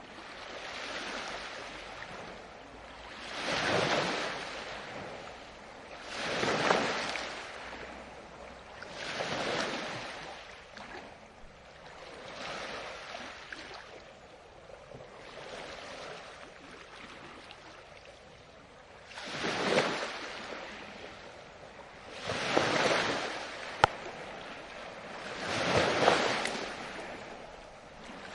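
Small waves washing in on a shore, each one swelling and fading every three seconds or so, with a calmer spell in the middle.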